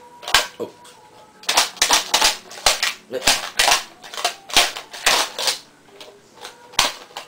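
Irregular sharp plastic clicks and rattles as a small McDonald's Yu-Gi-Oh plastic toy case is opened, snapped shut and handled.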